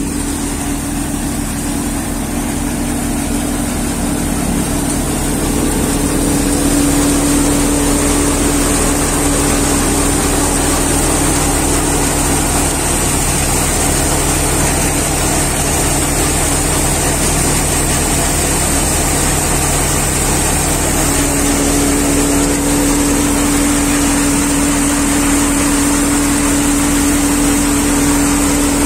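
Multi-crop thresher running steadily while threshing paddy: a continuous mechanical hum that grows a little louder over the first few seconds, then holds level.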